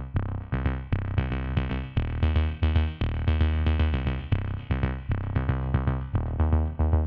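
Electronic background music with a steady beat, bass and pitched synth notes.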